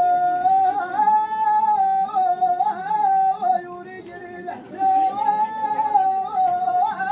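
A high singing voice holding long wordless melismatic notes in the style of Amazigh Atlas chant, with wavering ornaments. The voice breaks off briefly about four seconds in, then comes back.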